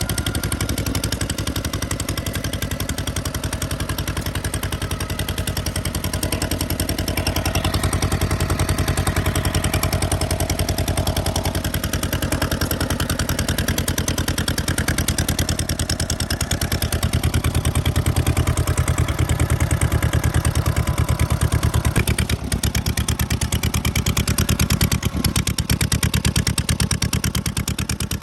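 Daikin DS-type two-cylinder kerosene engine running steadily with a rapid, even firing beat. It grows a little louder about two-thirds of the way in.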